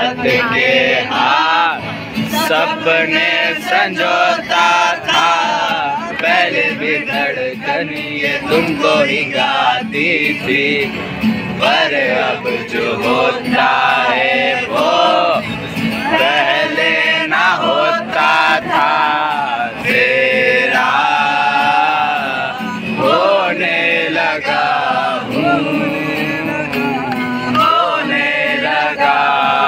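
Group of male voices singing together to acoustic guitar accompaniment.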